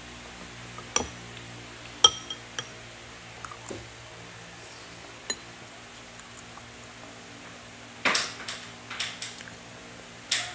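Eating utensils clicking and clinking against a bowl as a child spoons up rice. Scattered sharp clinks come first, a few ringing briefly, then a closer run of louder knocks near the end.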